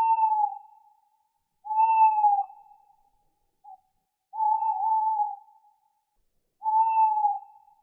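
Owl hooting: four single, clear hoots, each held for under a second with a slight fall in pitch at the end, about two seconds apart.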